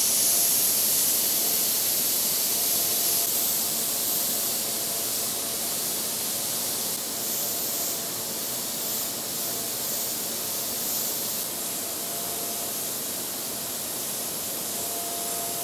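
Dual-action airbrush spraying paint: a steady hiss of compressed air from the nozzle, easing slightly over the stretch.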